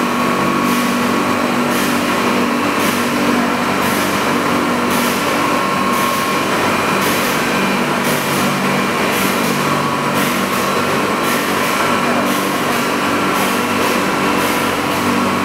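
Factory production-line machinery running steadily: a constant mechanical hum with a few held tones, and a high hiss that pulses about once a second.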